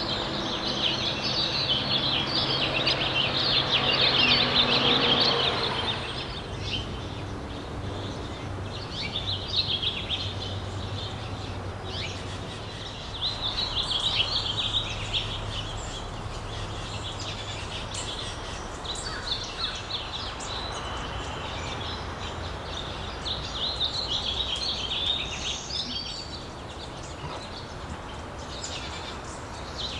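Small birds chirping and twittering, a dense chorus for the first six seconds and then in patches, over a steady low background rumble.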